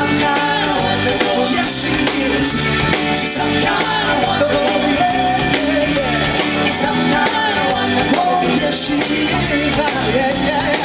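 Live band playing a soul-pop song with drum kit and guitar, running without a break through a passage with no sung words.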